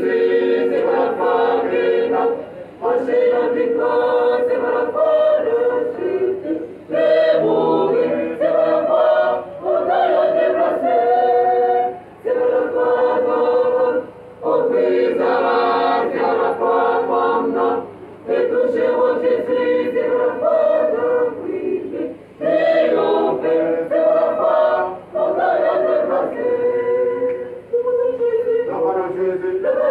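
Church choir of women and men singing a hymn together, in phrases a few seconds long with a short pause for breath between each.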